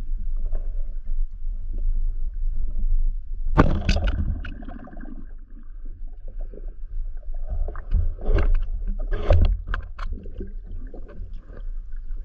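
Muffled underwater recording from a submerged action camera, with a steady low rumble of moving water. About three and a half seconds in comes a sharp loud burst as the speargun fires its shaft, followed later by scattered crackles and knocks.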